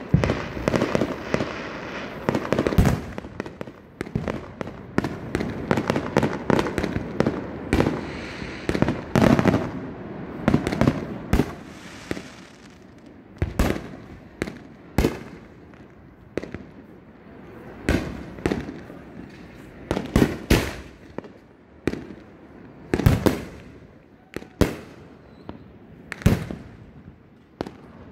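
Fireworks going off overhead. A dense run of bangs and crackles fills the first dozen seconds or so, then single loud bangs follow every second or two, each trailing off briefly.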